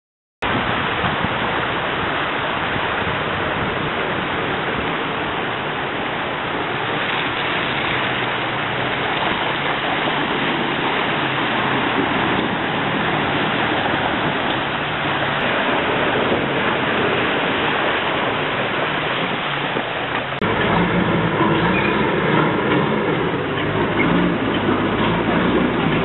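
Fast, flooded river water rushing steadily as a four-wheel-drive SUV wades through it. About twenty seconds in the sound changes suddenly to a heavy tanker truck's diesel engine running over the churning water as the truck fords a muddy flooded river.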